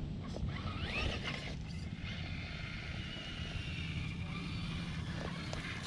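Element RC Enduro Knightrunner 1/10-scale RC crawler driving over rock: its electric motor and drivetrain whine, rising in pitch briefly about a second in, over a steady low rumble.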